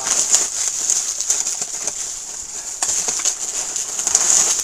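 Rustling and crinkling of packaging being handled, a run of irregular crackles.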